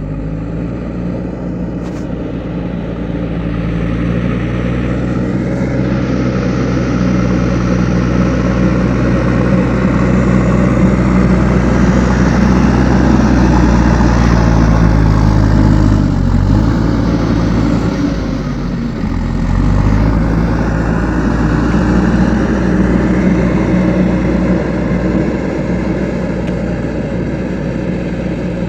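JCB 3DX backhoe loader's diesel engine running steadily and building up over the first few seconds. Its pitch sags briefly twice around the middle.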